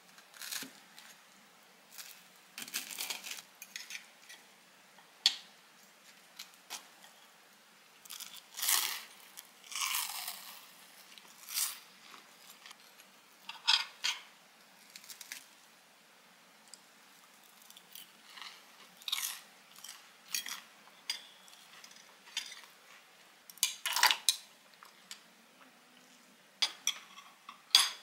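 Knife and fork cutting through crisp, slightly burnt toast on a ceramic plate, with irregular crunches as the toast is cut and chewed.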